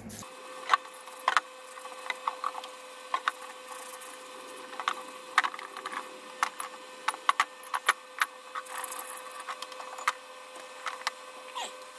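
Benchtop parts washer's pump running with a steady hum while cast-iron bench grinder parts are scrubbed in it, with irregular sharp clicks and knocks of the metal parts against the tub.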